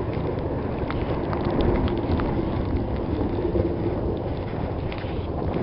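Strong gusty wind rumbling on the microphone, with scattered small ticks throughout.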